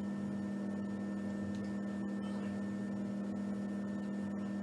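A steady electrical hum with a faint hiss, holding one low pitch with fainter overtones, cutting in and out abruptly.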